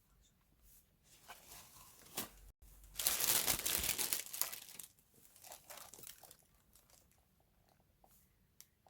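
Packaging being crinkled and torn by hand as an item is unwrapped, with scattered crackles building to a loud, dense stretch of crinkling about three seconds in, then thinning out to occasional rustles.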